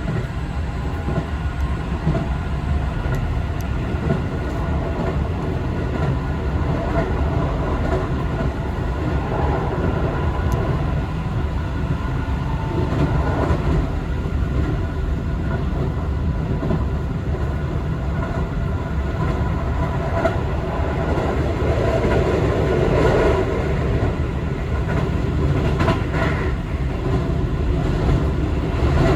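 Cabin sound of a Keio 5000 series electric train running between stations: a steady low rumble of wheels on the rails with a faint steady hum above it.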